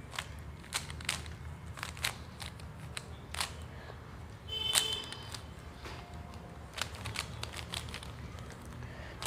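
Plastic Rubik's cube being turned by hand: irregular clicks as its layers snap round, with a brief squeak about halfway through, over a low steady hum.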